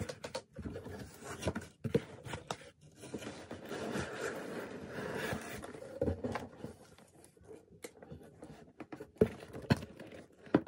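Cardboard box and packaging being handled and unpacked. There is scraping and rustling, with a denser stretch of rustling a few seconds in and scattered sharp knocks and clicks.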